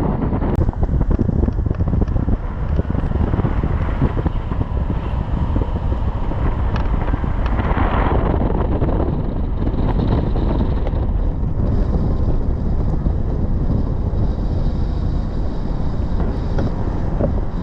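Wind buffeting the microphone over a steady low rumble, with no clear breaks or single knocks.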